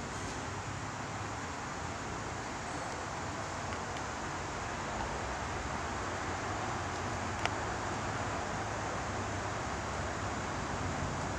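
Steady outdoor background noise: an even hiss with a low hum underneath, and a single faint click about seven and a half seconds in.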